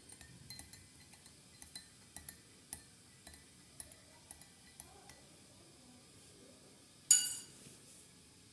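Metal spoon clinking against a glass: a run of light, irregular clinks for about five seconds, then one louder ringing clink about seven seconds in.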